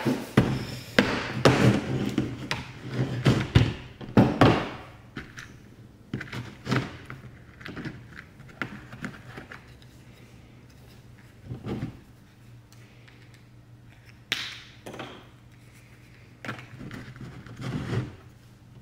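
Hand tools and a clear plastic parts organizer handled on a workbench: a run of clicks, knocks and rattles in the first few seconds, then scattered single clicks as heat-shrink tubing, wire and cable cutters are picked up and set down.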